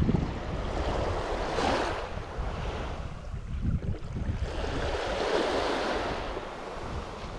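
Small waves washing onto a sandy beach at the water's edge, swelling twice, with wind rumbling on the microphone.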